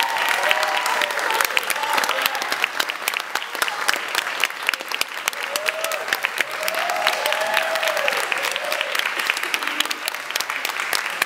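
A small audience applauding, with a few voices calling out over the clapping near the start and again midway.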